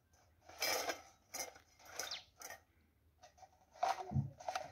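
Plastic mugs, bowls and plates clattering and knocking as they are set one by one onto a wire-mesh drying rack: a string of light knocks about every half second. There is a brief low vocal sound near the end.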